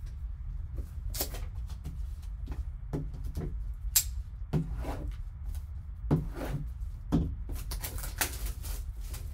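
A plastic-wrapped cardboard trading-card box is handled with gloved hands: picked up, turned over and knocked down on a table. It gives a series of irregular knocks and plastic crinkles, the sharpest about four and six seconds in, over a steady low hum.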